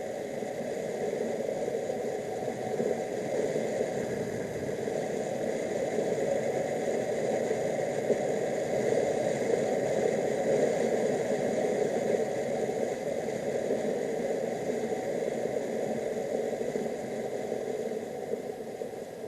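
Steady road and wind noise from a moving motorcycle, swelling a little in the middle and easing off near the end.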